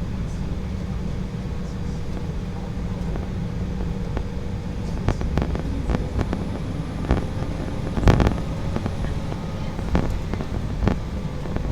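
Steady low rumble of an Embraer E175's cabin on the ground after landing, with a faint steady hum. From about five seconds in come scattered sharp knocks and clicks, the loudest about eight seconds in.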